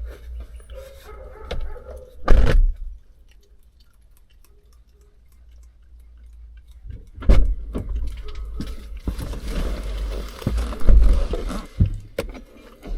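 A dog and a person getting into a car: a heavy thud about two seconds in, then knocks, scraping, rustling and jingling as they settle, with a sharp click near the end.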